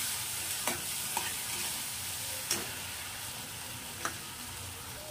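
Thick onion-tomato masala sizzling in oil in a metal kadhai as it is fried and stirred with a metal spatula, with a few light clicks and scrapes of the spatula against the pan.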